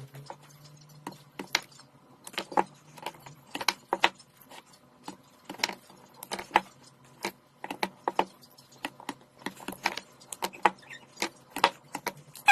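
Sharp, irregular clicks and clacks of battery-pack parts being handled during reassembly, about two or three a second, over a faint steady hum.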